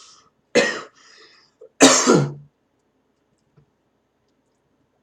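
A man coughing and clearing his throat twice, two harsh bursts in the first half, from the burn of extremely hot spicy cheese fries.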